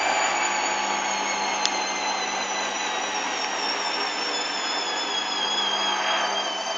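Hoover Dynamic washing machine's motor whining during a spin, its pitch slowly falling as the drum slows, over a steady hum. A single sharp click sounds about a second and a half in.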